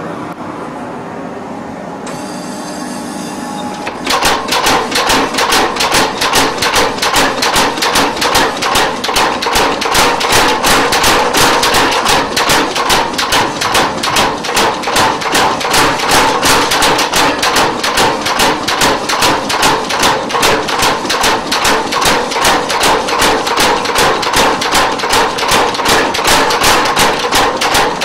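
Mechanical power hammer pounding a red-hot iron bar in rapid, perfectly even blows, several a second, starting about four seconds in. Before the hammer starts there is a steady rushing noise.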